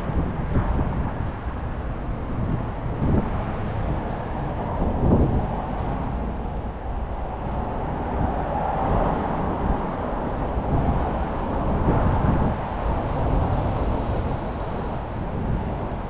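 Steady city road traffic noise, with a vehicle passing louder around the middle.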